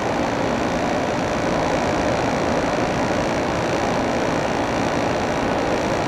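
Window air conditioner running steadily, its fan blowing and compressor humming with no change in level, with the condensate water drained from its base pan.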